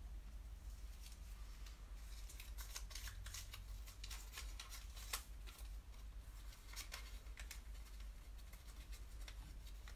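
Faint paper rustling and crinkling as a question slip is drawn and handled: short, irregular crisp crackles over a steady low hum.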